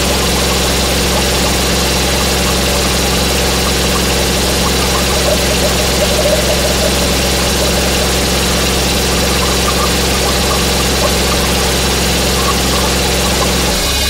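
Harsh noise music: a dense wall of distorted hiss over steady low droning tones, the low drone changing pitch shortly before the end.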